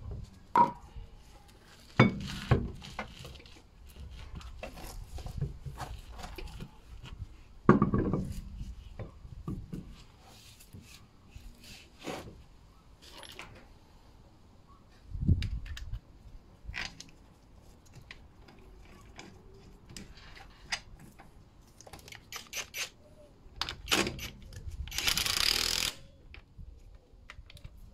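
Metal clunks and knocks as a car's road wheel is handled and hung back on the hub, then near the end a cordless impact wrench runs for about a second, rattling a wheel bolt tight.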